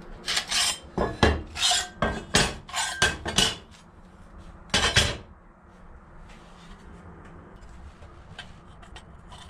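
Cut pieces of thin sheet steel clattering against each other and the wooden floorboards as they are set down and handled: a quick run of about eight metallic clanks over the first few seconds, one more near the middle, then only light taps.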